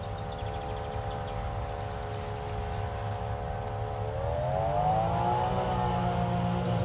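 John Deere 8400i self-propelled forage harvester chopping grass: a steady high whine from its cutterhead and blower over a low engine drone. Both rise in pitch about four seconds in.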